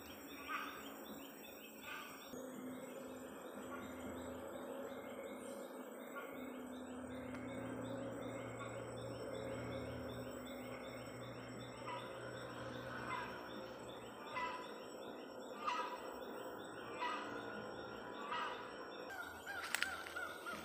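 Rainforest birds calling: a fast, even chirping through the first half, then single call notes about once a second. The caller is taken for a hornbill.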